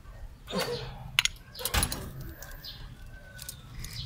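A few sharp metallic clicks and clinks of hand tools on the valve gear of a Toyota 4K engine while a valve's clearance is being set with a feeler gauge.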